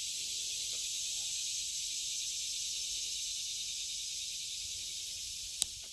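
Steady high-pitched insect chorus droning without a break, with one sharp click near the end.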